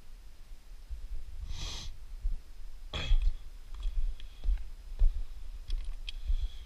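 Wind buffeting a body-worn action camera's microphone as a low, uneven rumble, with a breath-like rush of air near the middle and a few small clicks and scrapes as hands grip the rock while scrambling.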